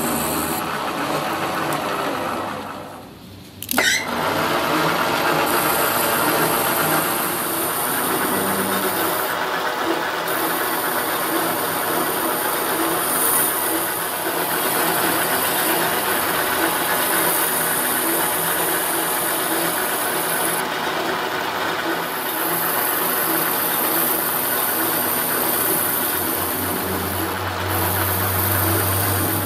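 Metal lathe running while its cutting tool turns down a metal shaft: a steady machine drone with a high cutting hiss that comes and goes. The sound drops briefly about three seconds in and comes back with a sharp click.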